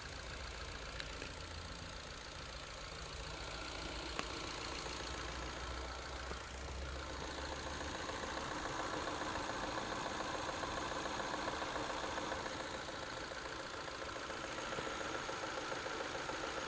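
Ford Focus Mk3 engine idling steadily, with a few faint ticks; the owner hears knocking in it and is unsure whether it is normal. The low hum drops away about halfway through.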